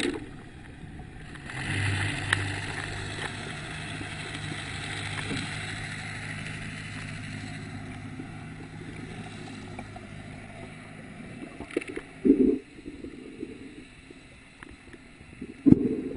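Muffled underwater sound of a boat's engine: a low steady hum that sets in about a second and a half in and fades out after about ten seconds, over a hiss of water. Two short, loud, muffled bursts come near the end.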